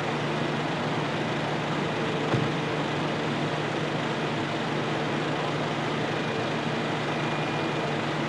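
Fire appliance's diesel engine running steadily at the scene, a constant low hum. A single short knock a little over two seconds in.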